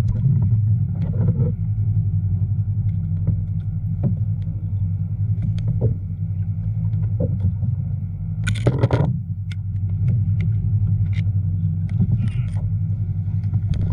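A steady low motor hum with an even pitch, with a few faint knocks and a short loud burst of noise about eight and a half seconds in.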